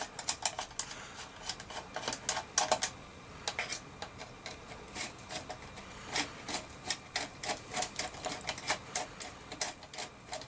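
Phillips screwdriver backing screws out of a metal detector's plastic control housing: a run of small, irregular clicks and ticks as the driver turns and is regripped.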